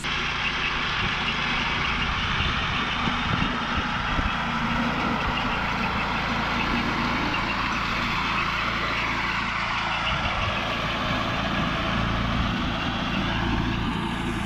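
Horse-drawn forecart with a rotary hay tedder running, a steady mechanical drone with a fine, fast ticking from the tedder's drive and rotors as it throws the hay.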